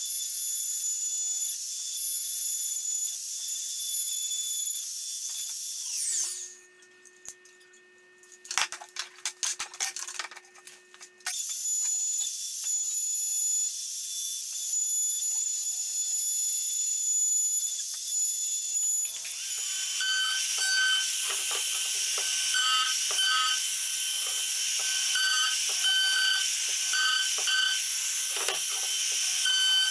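Compact trim router running with a steady high whine, then spinning down about six seconds in; after a few seconds of clicks it starts again abruptly. From about nineteen seconds in, the bit is cutting into wood, adding a rough, uneven cutting noise to the whine.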